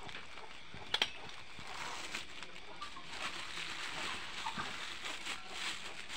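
Thin clear plastic bags crinkling and rustling as they are opened and handled, with a sharp double click about a second in.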